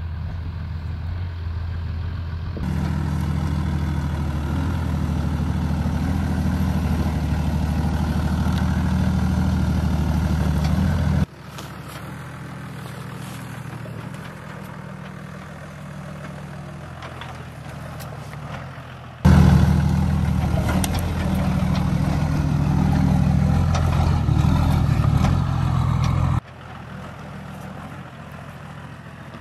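Diesel Toyota Land Cruiser engines running at low revs as the trucks crawl over rocks, heard in a string of cut-together clips. Two loud close-up stretches, starting about a tenth of the way in and again about two-thirds through, alternate with quieter, more distant engine sound.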